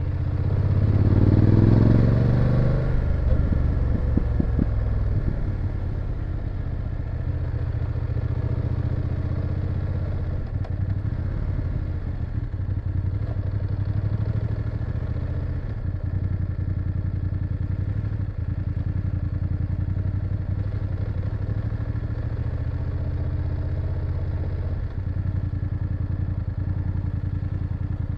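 BMW F850GS parallel-twin engine revving up over the first few seconds, then running steadily at low revs.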